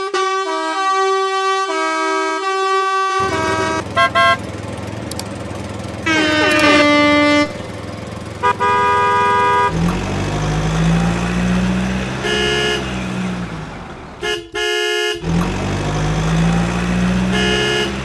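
A string of cartoon sound effects for construction vehicles: a short tooting horn jingle, several horn toots, a brief falling whistle-like glide, and a low engine rumble that revs up and back down twice.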